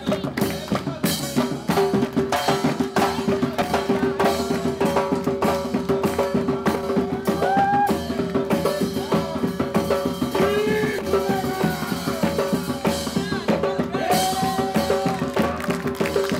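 Fast, drum-led Brazilian percussion music, with a steady held tone under the beat and a few short melodic phrases over it.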